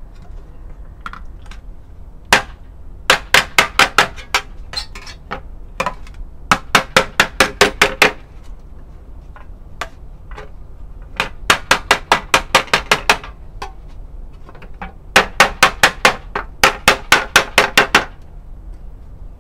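Hammer beating a sheet of tin-can steel flat on a wooden anvil block: sharp metallic blows in quick runs of about five or six a second, with short pauses between the runs.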